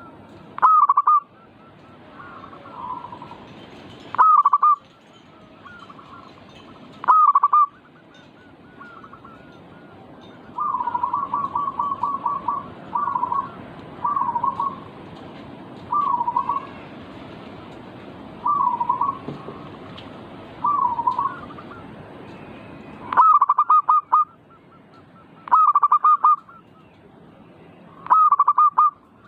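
Zebra doves (perkutut) cooing: loud bursts of quick rolling coos every few seconds, with a stretch of softer, separate coos in the middle, over a steady background hiss.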